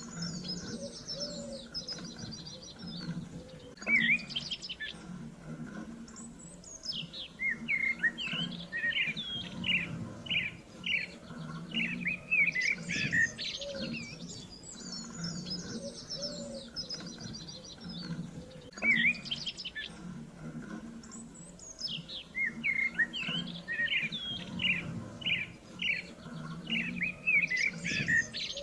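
Songbirds chirping and singing in quick runs of short notes and trills. The same stretch of song repeats about every fifteen seconds, over a faint steady hum.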